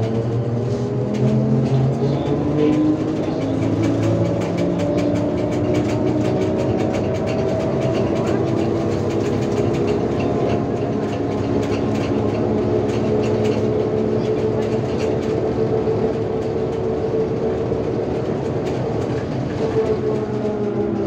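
Trolleybus electric traction drive running, heard from inside the cabin: a whine of several tones that rises in pitch over the first few seconds as it speeds up, holds, and falls again near the end as it slows. Faint cabin rattles and clicks run under it.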